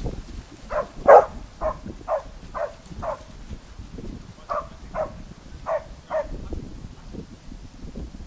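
Bedlington terrier baying at a wild boar: short, high barks about two a second, in two runs with a pause of a second or so near the middle.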